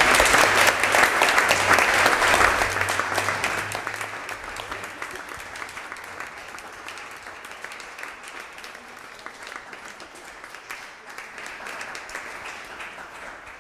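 Audience applauding: loudest in the first few seconds, then dying down after about four seconds into lighter, thinner clapping that keeps going.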